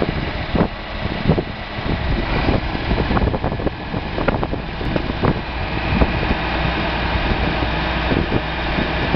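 1969 Massey Ferguson 1130's six-cylinder diesel engine running steadily, with gusts of wind buffeting the microphone.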